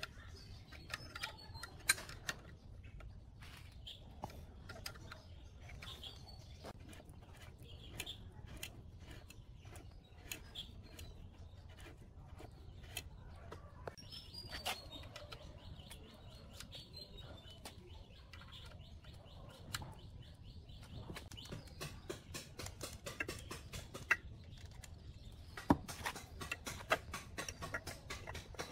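Scattered light clicks and taps of metal engine parts being handled and fitted into an open aluminium crankcase, with a few sharper clicks near the end, while birds chirp in the background.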